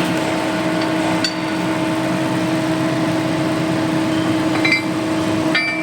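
Steady hum of a track-link press machine running with a constant tone. It has a few light metallic clinks about a second in and near the end.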